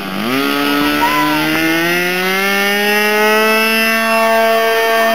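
The RC airplane's Evolution .46 two-stroke glow engine runs at full throttle on the takeoff run. Its pitch dips briefly at the start, then climbs steadily as the plane picks up speed.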